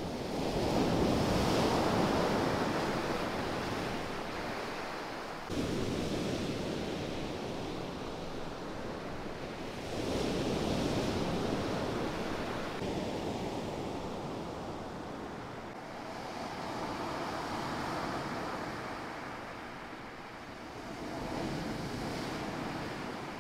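Surf from a rough sea breaking on a beach. The waves surge in about every five seconds, each one swelling and then fading away.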